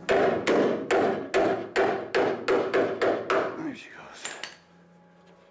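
Hammer striking a chisel against the folded edge of a steel car door skin, about nine quick ringing blows a bit under half a second apart, then a pause. The skin's hem is being worked loose to remove the rusted door skin.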